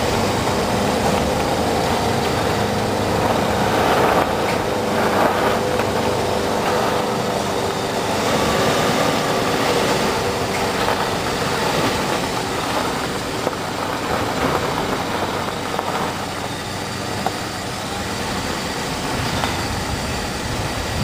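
Car driving slowly: steady engine hum and tyre and road rumble.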